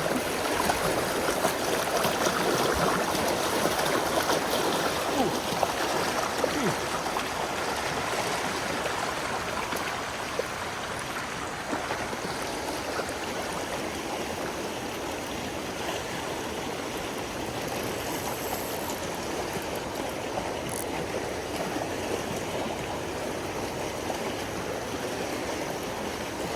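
Creek water running steadily, a little louder over the first several seconds before settling.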